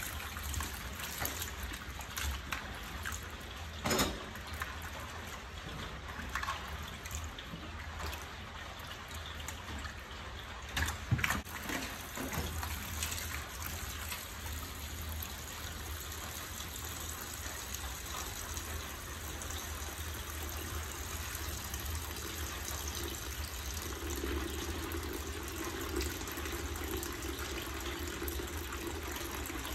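Tap water running steadily into a plastic basin of cut breadfruit pieces, with hands swishing and rubbing the pieces in the water, and two sharp knocks about four and eleven seconds in. Near the end the hands stop and only the running tap filling the basin is left.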